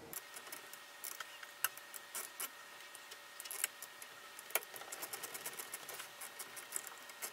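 Irregular light metallic clicks and ticks of a 3/8-inch socket ratchet and wrench being worked to unscrew a 3D printer's nozzle.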